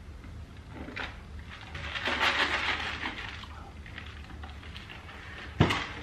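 Rustling handling noise that swells for about two seconds, then a single sharp knock near the end, over a faint steady hum.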